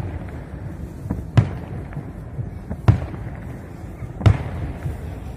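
Distant fireworks display: three sharp bangs of bursting aerial shells, evenly spaced about a second and a half apart, over a steady low rumble.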